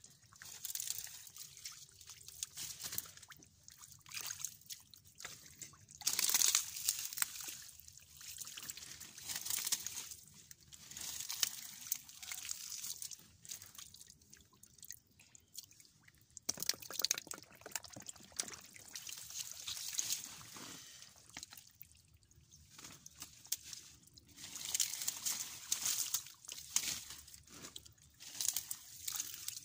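Hands splashing and stirring through shallow muddy water in irregular bursts, with trickling water between them.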